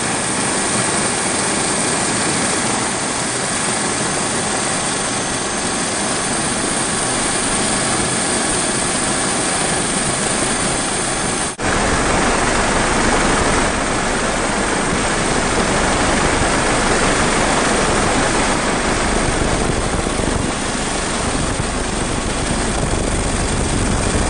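Steady aircraft engine noise with a thin high whine over a dense rush. About halfway through there is a brief break, after which the deep rumble is louder.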